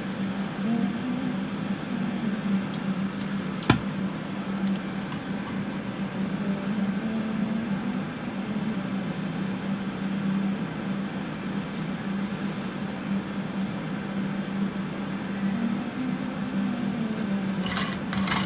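Electric fans running steadily, a low hum over an even rushing noise, drawing off soldering fumes. A single sharp click about four seconds in.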